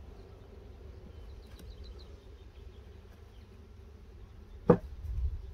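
Honeybees buzzing faintly around an open hive over a low steady rumble. About three-quarters of the way through, one sharp knock as the wooden hive's top board is handled.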